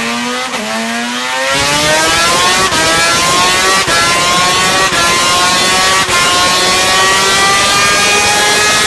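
Suter MMX 500's 576 cc two-stroke V4 race engine running flat out on a dynamometer. It is loud, its pitch climbs steadily, and it cuts out briefly four times along the way.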